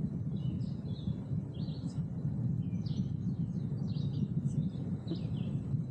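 Songbirds chirping in short, repeated calls over a steady low rumble.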